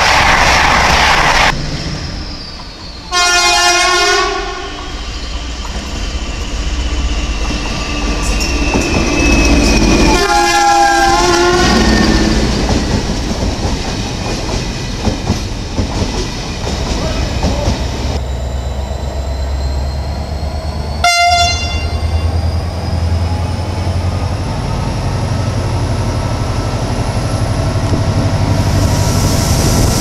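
Passing trains sounding their horns in greeting: a train rushes past, then comes a long multi-tone horn blast, a second similar blast a few seconds later, and a single short toot about two-thirds of the way through. Under the horns runs the rumble and clatter of railway cars on the track.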